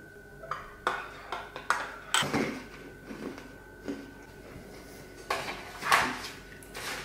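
Tableware clinking and knocking while someone eats: a fork or hand against a ceramic plate and mug, and things set down on a hard countertop, in a string of short sharp clicks with louder knocks about two seconds in and near the end.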